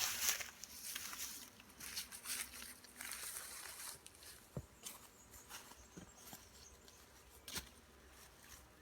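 Rustling and handling noise with scattered light clicks and knocks, and a faint low hum in the first few seconds.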